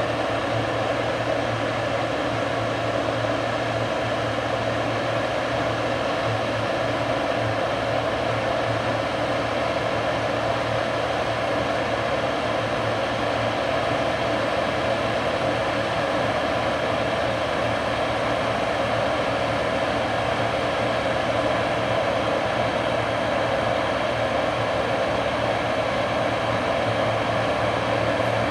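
Heavy diesel farm machinery running steadily under load, a constant unbroken machine noise with a low steady drone.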